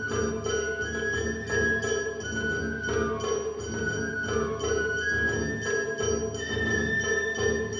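Japanese festival hayashi: a shinobue bamboo flute playing a high, gliding melody over steady, evenly spaced strokes of taiko and shime-daiko drums.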